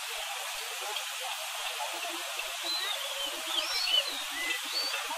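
Steady rush of a flooded river running fast over boulders, with a bird chirping several times in the second half.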